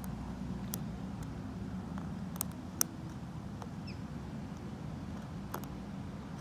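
Light, irregular clicks and ticks of a short hook pick and tension wrench working the pin stack of a vintage Lockwood 570 oval mortise cylinder. The sharpest click comes about three seconds in. Underneath is a steady low rumble of wind muffled by a jacket over the microphone.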